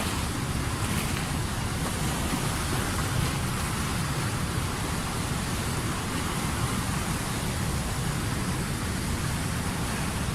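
Waterfall: falling water rushing as a steady, unbroken wash of noise.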